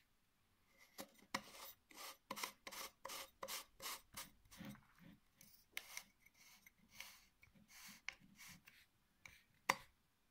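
Faint, short scraping rubs repeated about two or three times a second as a metal lens adapter ring and a camera lens's front filter thread are handled against each other.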